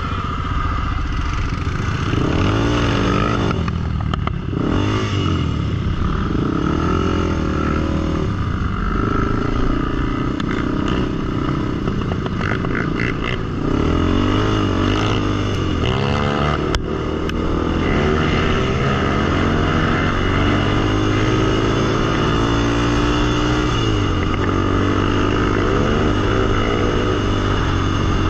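Single-cylinder sport quad engine revving up and down in repeated surges, then running at a steadier, higher throttle.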